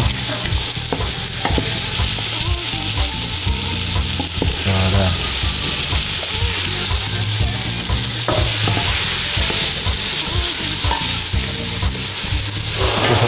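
Diced vegetables (potatoes, carrots, fennel and peppers) sizzling steadily in olive oil in a large stainless steel pot. A wooden spoon stirs them, with frequent light scraping clicks against the pot. The vegetables are being sautéed until glazed, the first stage of a fish soup.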